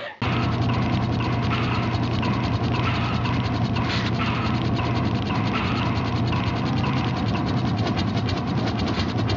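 Steady, rapid mechanical clicking over a low steady hum, starting abruptly.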